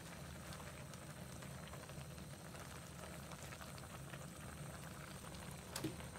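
Seafood and vegetable hot pot boiling in an earthenware donabe: faint, steady bubbling with tiny pops, and a light knock near the end.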